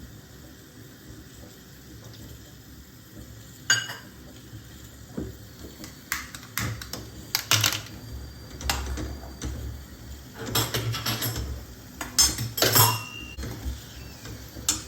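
Metal kitchen vessel and spoon clinking and scraping: one sharp clink about four seconds in, then a run of clinks and scrapes through the second half.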